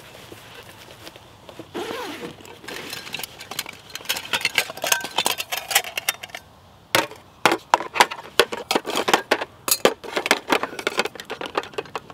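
Metal and plastic camping mugs clinking and knocking as they are set down one after another on a small folding camp table, in a quick run of sharp clinks that thickens in the second half.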